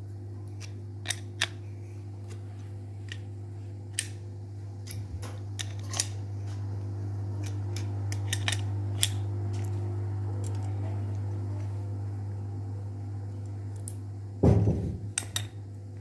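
Scattered sharp metallic clicks and clinks as a bearing puller is worked against a ceiling fan motor's seized ball bearing, over a steady low hum, with a louder metallic clatter near the end.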